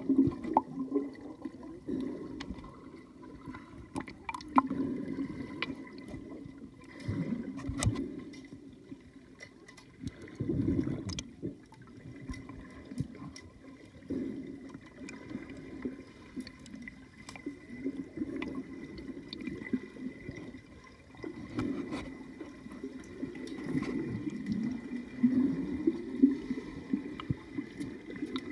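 Pool water churning as heard underwater by a submerged microphone: a muffled sloshing and gurgling that swells and fades every second or two, with scattered sharp clicks and a faint steady high whine underneath.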